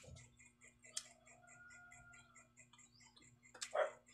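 Close-miked eating sounds from a person eating by hand: quiet chewing and mouth noises, a sharp click about a second in and a louder one near the end. A steady fast ticking, about five a second, runs underneath.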